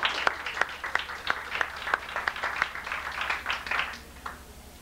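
A small group of people applauding, separate hand claps that thin out and stop about four seconds in.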